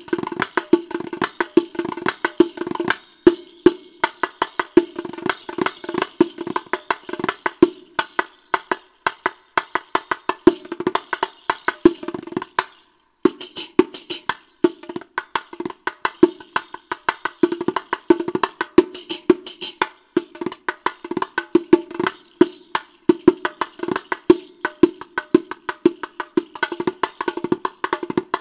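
Riq (Arabic frame tambourine with brass jingles) played solo in fast rhythmic patterns, mixing resonant head strokes with bright jingle strokes. There is a brief break about thirteen seconds in.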